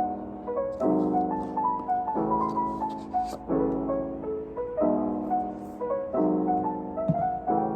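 Background piano music: a gentle run of sustained chords, a new one struck about every second and a third, with a few faint clicks over it.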